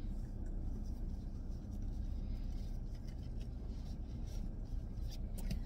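Fabric window cover being slid across a minivan's passenger window by hand: light rustling with a few small clicks, over a low steady rumble.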